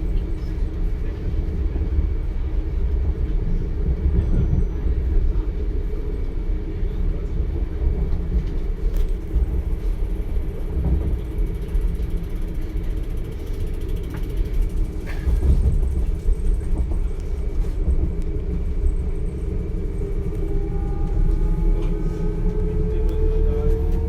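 DB Class 425 electric multiple unit heard from inside: a steady low rumble of the running train. About twenty seconds in, several thin whining tones from the traction drive set in and rise slowly in pitch as the train gathers speed.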